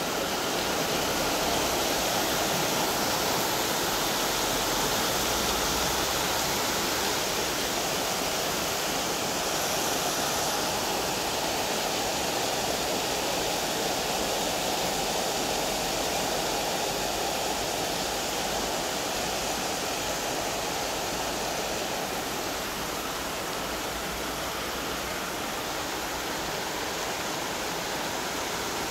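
Heavy rain pouring down in a steady, dense hiss, falling on trees, bushes and pavement.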